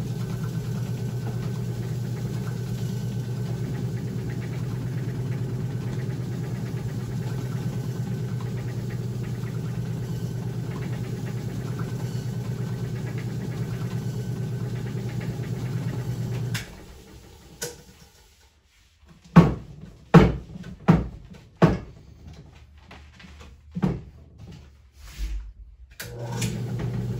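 Bowling-ball spinner motor running with a steady hum while the ball is sanded by hand. The motor stops about two-thirds of the way through, a few sharp knocks follow as the ball is handled in the spinner cup, and the motor starts again near the end.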